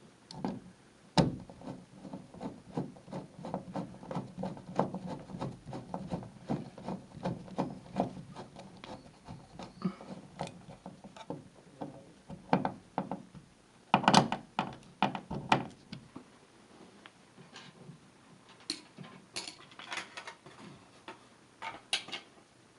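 Many small, irregular clicks, taps and rubs from hand work on a wall switch and its hardware, with a louder cluster of knocks about fourteen seconds in and sparser sharp ticks toward the end.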